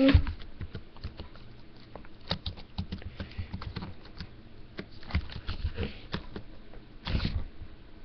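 Scattered light clicks and taps with soft rustling, from hands handling the paper and drawing materials, and a short louder rustle about seven seconds in.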